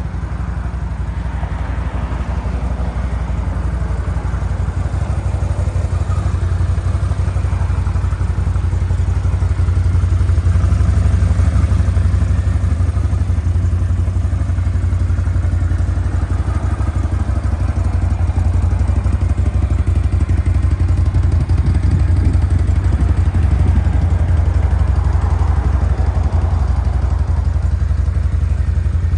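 2021 Can-Am Outlander XT 650 ATV's Rotax V-twin engine running steadily, its loudness rising slightly about a third of the way in.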